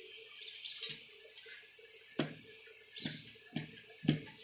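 Large steel tailor's shears clicking as they are handled and close through cloth: about five sharp metallic snips spaced roughly half a second to a second apart, the loudest near the end.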